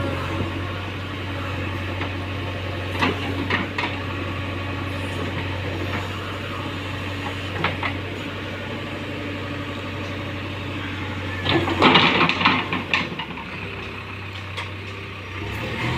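JCB 3DX backhoe loader's diesel engine running steadily, with a few sharp clanks and a louder noisy burst about twelve seconds in. The engine hum eases off for a few seconds after the burst.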